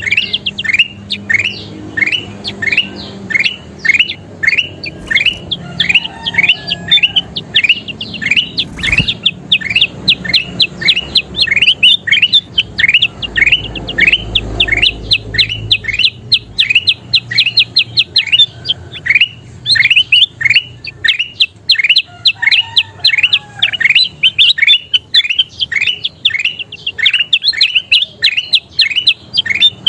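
Kutilang emas, a bulbul, calling without pause: a fast series of short notes, each falling in pitch, about two to three a second. A single click sounds about nine seconds in.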